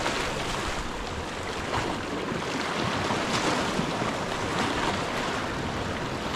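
Sea surf washing against the rocks below, a steady rushing noise, with some wind on the microphone.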